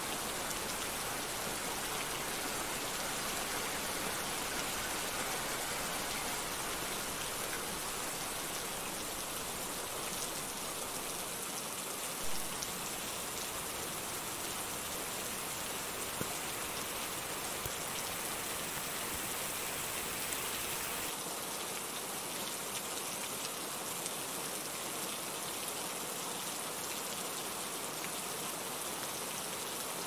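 Steady rain falling: a dense, even hiss of many drops with scattered individual taps, and one brief louder tap about twelve seconds in. About two-thirds of the way through, the deep part of the sound thins out and the hiss turns lighter.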